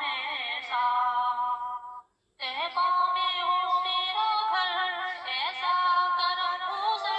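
Background music with a high female singing voice, holding notes and sliding between them; it drops out briefly about two seconds in, then resumes.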